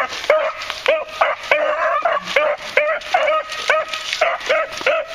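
Beagles barking in quick, repeated high yelps, about two to three a second and sometimes overlapping, as the hounds give tongue while trailing a scent through brush.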